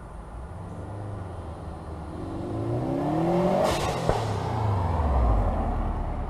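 A 2011 Subaru WRX's turbocharged flat-four revving up, then a short burst of hiss as the throttle closes, followed by the engine pitch falling away. The hiss is the aftermarket GFB blow-off valve venting boost.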